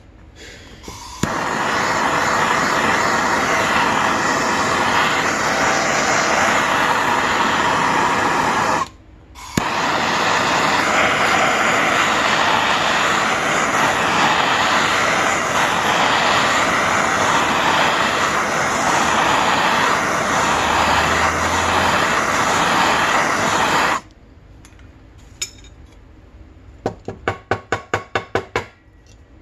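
Handheld gas torch burning with a steady loud hiss as it heats an aluminium engine cover to free a bearing, with a brief break about nine seconds in and shut off well before the end. Near the end, a quick run of about ten sharp knocks as the hot cover is tapped down to drop the bearing out.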